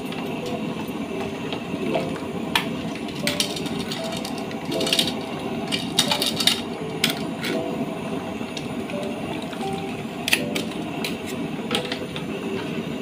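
A metal ladle and tongs clinking against a large metal cooking pot and a wire-mesh spice basket sitting in simmering broth. There are a dozen or so sharp, irregular clinks over a steady background hiss.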